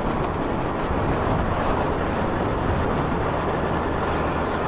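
Suzuki 1200 Bandit's inline-four engine running steadily on the move, under a steady wash of wind and road noise on the action camera's microphone.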